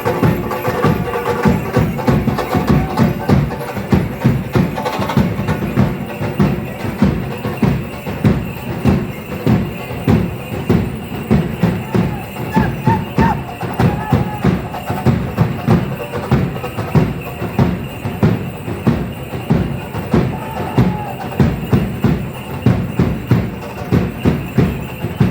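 Danza drums beating a steady, fast rhythm of about two to three strikes a second, with sharp clicking hits mixed in.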